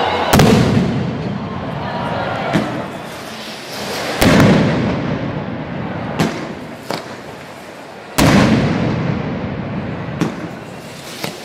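Mascletà firecrackers going off in a slow, spaced sequence: three loud bangs about four seconds apart, each followed by a rumbling echo, with smaller single cracks in between.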